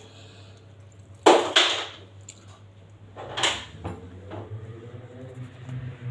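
Kitchen handling noises while food is prepared: a short loud scuffing burst about a second in and another about three seconds in, with a few lighter knocks, over a steady low hum.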